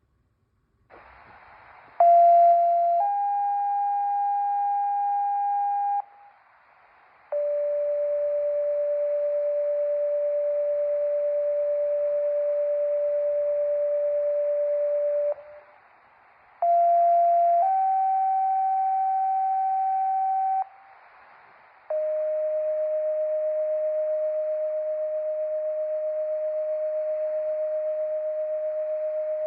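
Fire/EMS two-tone sequential paging tones sent over a radio channel with static hiss, as a monthly tone test. Twice a short tone is followed by a higher one held about three seconds, then a long steady lower tone of about eight seconds that sets off the pagers.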